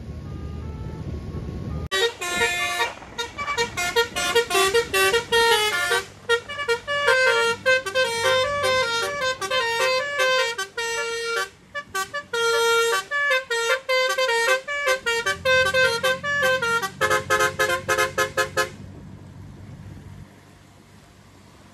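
Basuri telolet musical horn on a vehicle playing a fast melody of short, changing horn notes for about seventeen seconds, then stopping suddenly. A low engine rumble is heard before and after the tune.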